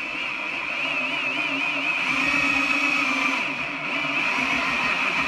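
Power drill running with a pipe nipple extractor bit pressed into the broken male coupler's threaded stub in an air compressor outlet, the bit grinding into the metal as it works to bite in. A steady high motor whine that wavers in pitch over the first couple of seconds, then holds even.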